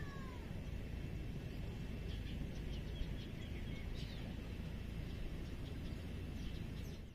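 Faint bird calls over a steady low outdoor rumble: a couple of falling whistles at the start, then scattered short chirps a few seconds in.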